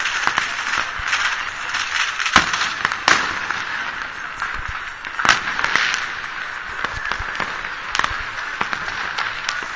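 Fireworks and firecrackers going off across a city: a continuous distant crackle with about five sharp, louder bangs scattered through it.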